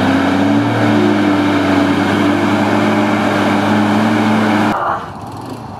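Engine of an ex-military cargo truck running steadily as the truck drives through a mud bog, its pitch lifting slightly about half a second in. The engine sound cuts off abruptly near the end.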